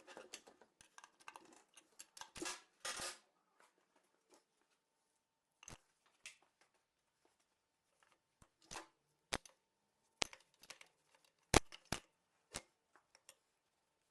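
Workshop handling sounds: scattered metal clinks and knocks of tools and engine parts being picked up and set down, with a stretch of scraping and rustling in the first three seconds.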